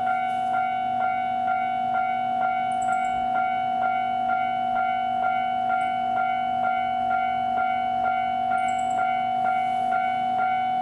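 Japanese railway level-crossing warning bell ringing, an electronic clang repeated evenly at about two strikes a second over a steady ringing tone. It signals that a train is approaching.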